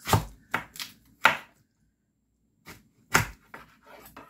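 A knife chopping down through watermelon slices set with jello and striking a wooden end-grain cutting board. There are several short, sharp chops, with a pause of about a second near the middle.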